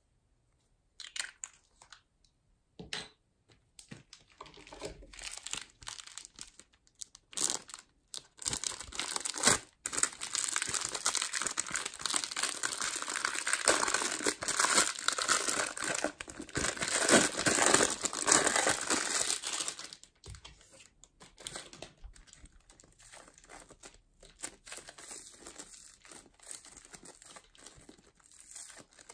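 Plastic bag of foam beads crinkling and rustling as it is handled and snipped open with scissors, loudest through the middle. Scattered clicks and taps come before it, and softer crackling near the end as the foam beads tip out of the bag.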